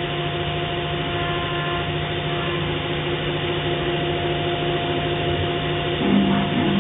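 STYLECNC ST6060H CNC milling machine's spindle running while a fine engraving cutter cuts letters into an aluminium plate: a steady hiss with a constant hum under it. About six seconds in, a wavering tone comes in over it.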